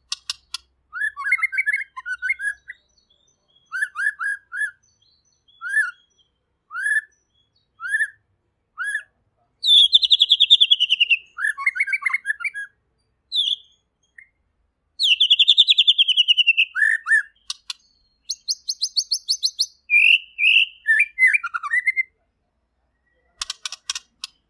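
White-rumped shama singing: a string of short upswept whistles about once a second, then long, fast trills that fall in pitch, a high buzzy rattle, and varied quick phrases near the end.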